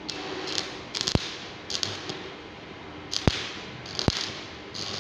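Stick (shielded metal) arc welding arc crackling in about six short bursts, with three sharp snaps, as the arc is struck and breaks off again and again on steel flat bar.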